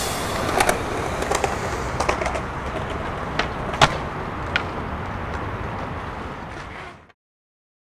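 Skateboard wheels rolling on rough asphalt, with several sharp clacks of the board from tail pops and landings, the loudest about four seconds in. The sound cuts off suddenly near the end.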